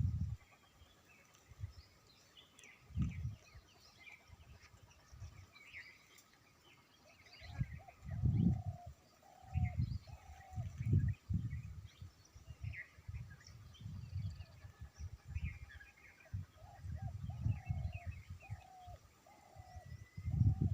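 Wild birds chirping and twittering, with runs of short, repeated falling call notes, and irregular low rumbles that are the loudest sounds.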